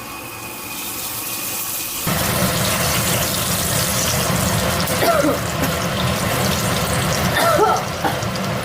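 Chongqing hotpot seasoning sizzling as it fries in hot oil in a pan, a steady hiss that builds over the first couple of seconds.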